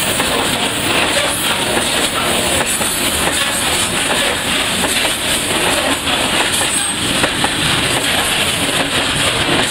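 Freight train of Talbot-type self-discharging hopper wagons rolling past at close range: a steady, loud rumble of steel wheels on the rails, with faint clicks as the wheels cross rail joints.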